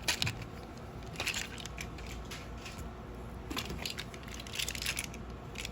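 Plastic packaging crinkling and crackling in several short bursts, with small clicks of handling, as a wrapped toy engine is taken out.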